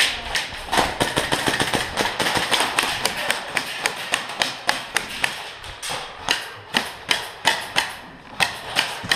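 Airsoft guns firing: a string of sharp clicks and snaps, dense in the first few seconds, then coming evenly at about two or three a second.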